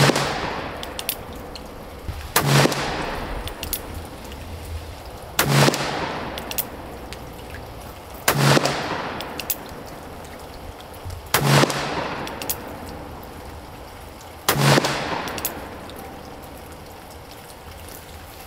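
Six shots from a black-powder Colt Cattleman revolver with a 4¾-inch barrel, loaded with 24 grains of Swiss 3F powder, fired about three seconds apart. Each sharp report is followed by a long fading echo.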